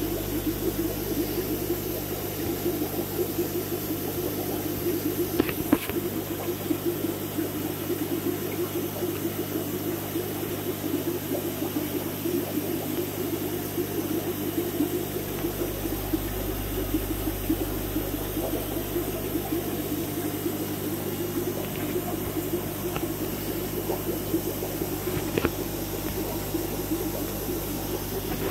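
Large aquarium's filtration running: steady water noise with a low hum, and a couple of short clicks.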